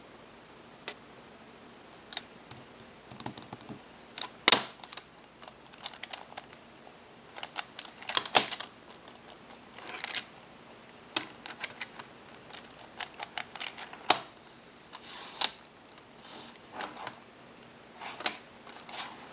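Plastic Rubik's-type puzzle cubes being turned and handled, their layers clicking and clacking in irregular runs, with a few sharper, louder snaps.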